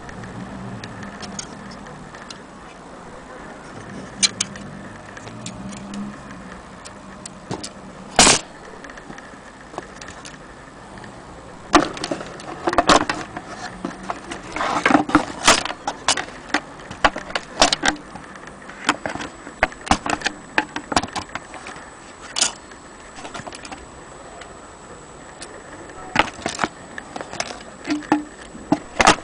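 Vintage Corona portable typewriter being worked by hand: irregular clacks of keys and typebars, one sharp clack about a quarter of the way in, then busier runs of clacking through the second half.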